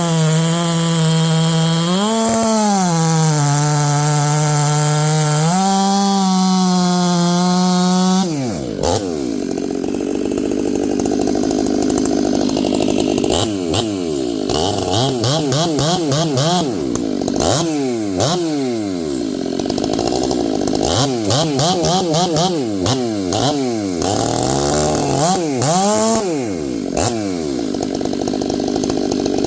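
Stihl MS 500i fuel-injected chainsaw running at high revs, now starting after its no-start fix. For the first eight seconds or so it runs at a steady high pitch with a couple of brief dips. After that it cuts wood, its revs dropping under load and climbing again many times.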